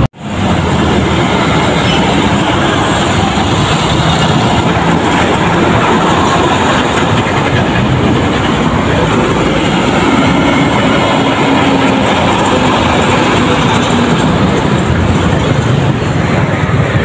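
Heavy tanker semi-trucks passing at close range: a loud, steady rumble of diesel engines and tyre and trailer noise.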